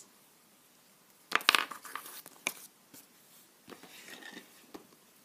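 Small plastic toy pieces being handled and set down on a table, with light rustling. A cluster of sharp clicks comes about a second and a half in, and softer rustling follows near the end.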